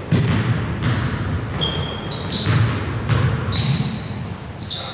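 Basketball game play on a hardwood gym floor: sneakers squeak in quick, short chirps as players cut and stop, over the dull thuds of the ball being dribbled and feet landing.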